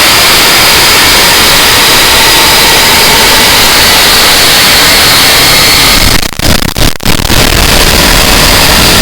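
Harsh noise music: a loud, dense wall of distorted static and hiss. It cuts out briefly twice, about six and seven seconds in, then comes back with a heavier low end.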